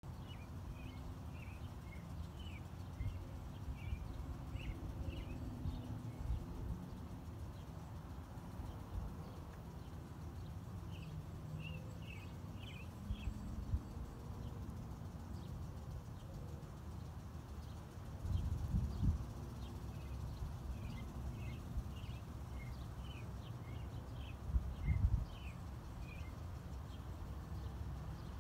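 Wind rumbling on the microphone, with gusts about two thirds of the way through and again near the end. Over it, small birds chirp repeatedly in short, high notes.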